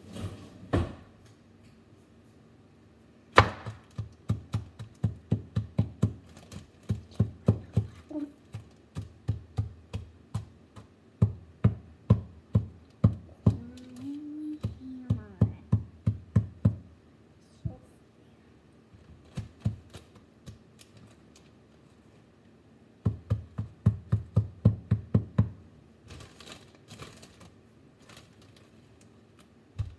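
A small mallet pounding a plastic bag of food on a stone countertop: rapid thuds, about three or four a second, in several runs with pauses between.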